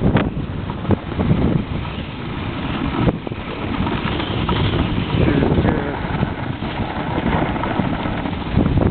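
Wind buffeting the microphone of a camera carried on a downhill ski run, a steady low rumble, with skis scraping over snow and a few brief knocks.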